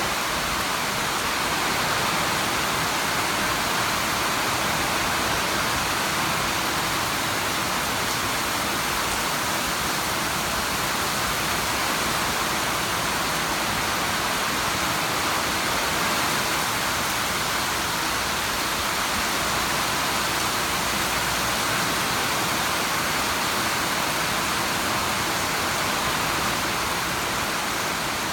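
Steady rainfall: an even, unbroken hiss of rain with no separate drops or thunder standing out.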